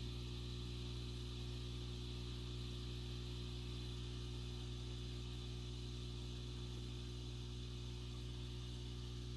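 Steady low electric hum with a light hiss from a running aquarium filter, unchanging throughout.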